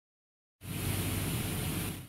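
A burst of steady rushing noise with a low hum underneath. It starts abruptly about half a second in and begins fading away near the end.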